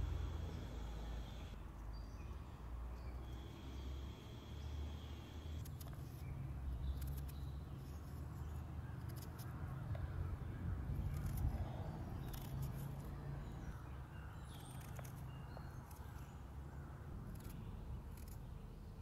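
A small knife cutting pieces off a whole onion held in the hand. Short, crisp cuts come at an uneven pace from several seconds in, over a steady low outdoor rumble.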